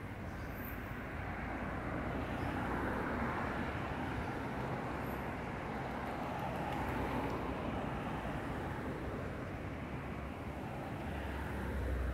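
Street traffic: a car driving past, its tyre and engine noise swelling over several seconds and then easing off. A low rumble rises near the end.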